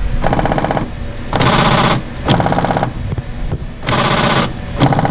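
Failing rear door lock actuator of a 2007 Honda CR-V buzzing and rattling in five short bursts of about half a second each, as the lock is worked: the fault it is being replaced for.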